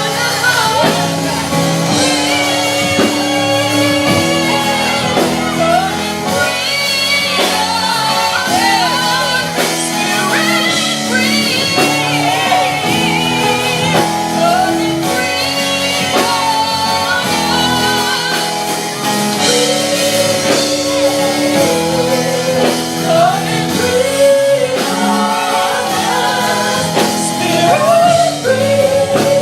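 Live gospel worship music: a band plays steady chords under singing that bends and runs up and down in pitch.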